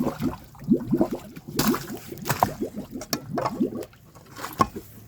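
Sewage water gurgling in a blocked drain, with quick bubbling glugs and a few sharp splashes.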